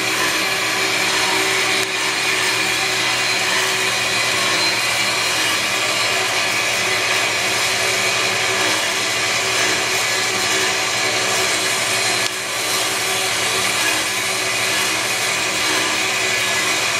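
Metal-cutting bandsaw running, its blade sawing through a steel gas cylinder: a steady, even sawing noise with held tones running through it. The level dips briefly about twelve seconds in.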